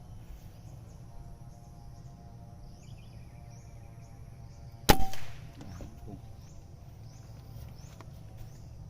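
A single shot from a PCP air rifle about five seconds in: one sharp crack with a brief ringing tail. Under it run a steady low rumble and faint high chirps repeating every half-second or so.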